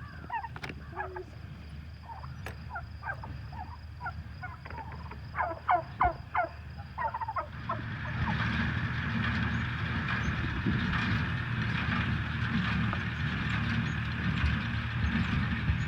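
Fowl calling in many short, quick pitched calls. About halfway through, a machine starts up and runs steadily with a low rumble and a rattling hiss over the calls.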